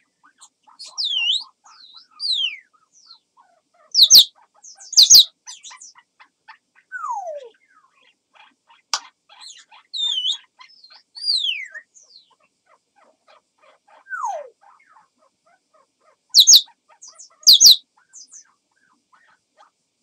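African grey parrot vocalizing, which the title presents as its imitation of special crow sounds: whistles that glide up and down, a few falling whistles, and two pairs of loud short calls, one pair about four seconds in and the other near the end.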